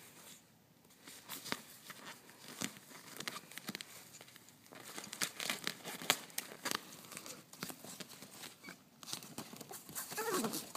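Nylon fabric of a pop-up mesh pet tent rustling and crinkling as a small dog scrambles about in it and a hand plays with it, with irregular scratches and clicks, busier from about halfway. A short pitched sound comes near the end.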